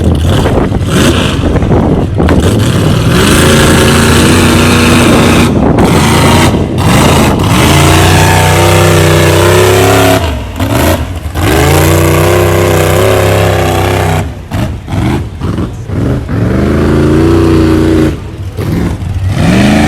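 Mud truck engine revving hard in repeated pulls, its pitch climbing and dropping several times, with a loud rushing noise underneath. It eases off briefly about halfway through and again a few seconds later.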